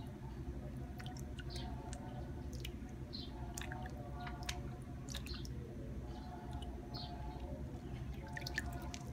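Wet squelching, small splashes and scattered drips as hands clean freshly caught eels in a plastic basin of bloody water, over a steady low hum.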